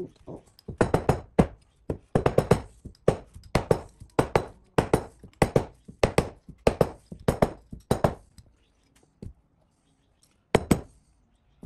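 Rubber mallet tapping on a steel Hinson clutch basket and gear, seating the tapered gear. The knocks come in a steady run of about two a second, often in quick pairs, for some eight seconds, then one more pair after a pause.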